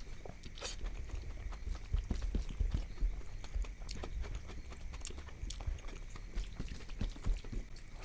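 A person chewing and biting food close to the microphone, with irregular wet mouth clicks and soft low thumps.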